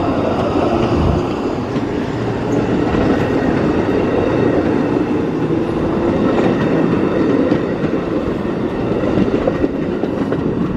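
A train running on the rails: a steady, continuous rumble of wheels and cars on the track, with no horn or stops.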